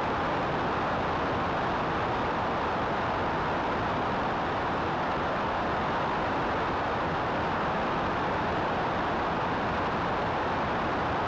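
Steady rush of airflow and engine-and-propeller noise from a Cessna 172 in cruising flight, picked up by a camera mounted outside on the wing.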